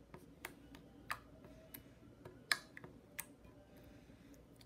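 Green slime being poked and pressed with fingertips, giving a series of irregular sharp clicks and pops as trapped air bursts, the loudest about two and a half seconds in.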